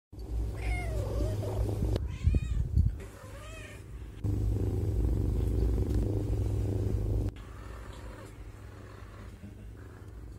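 Domestic cat meowing three or four times with drawn-out, bending calls, then purring steadily and loudly for about three seconds, and more softly after that.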